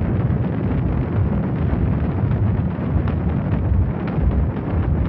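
V-2 rocket launch: the rocket motor's exhaust gives a loud, steady, deep rushing rumble.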